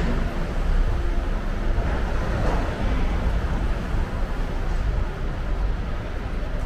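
Street ambience: a steady low rumble of distant road traffic, swelling briefly about two and a half seconds in.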